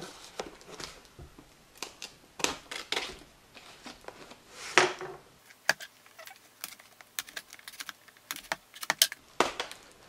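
A knife cutting through packing tape on a cardboard box: irregular rasping and scraping strokes, with sharp clicks and taps of the blade against the box that come thicker in the second half.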